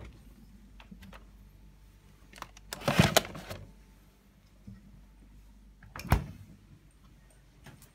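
A refrigerator door pulled open, with a noisy rustle lasting under a second about three seconds in. A short sharp knock about six seconds in, as a door is shut. A low steady hum runs underneath.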